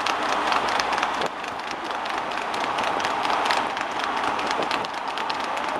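Hooves of two harness horses trotting on a tarmac road, a rapid, uneven clatter of hoofbeats, with sulky wheels and the steady noise of the following traffic underneath.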